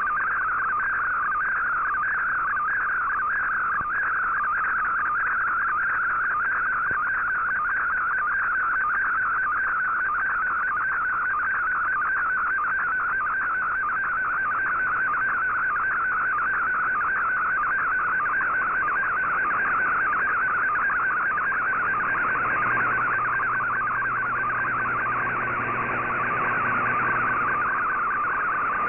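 Fldigi MFSK colour-picture transmission received on a shortwave receiver: a rapidly warbling tone between about 1 and 2 kHz over steady receiver hiss, each shift in pitch carrying the brightness of the image being sent line by line.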